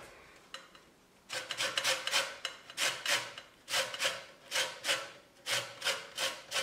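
Lemon rubbed against a stainless steel box grater, zesting off only the yellow peel. It makes a run of rasping strokes, about two a second, starting a little over a second in.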